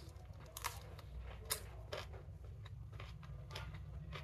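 Close-up eating sounds: chewing and mouth smacks with a few sharp crunches as a raw green chili is bitten and chewed along with a mouthful of chicken biryani, over a steady low hum.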